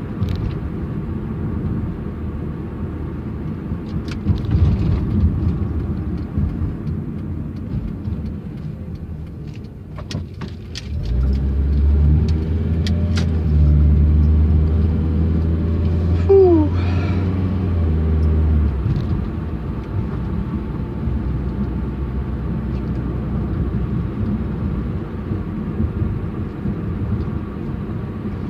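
Honda car driving, with steady engine and road rumble heard from inside the cabin. From about 11 s to 19 s the engine runs louder and deeper with a steady drone, as in a short hard pull, with a few sharp clicks just before and a brief falling whistle partway through.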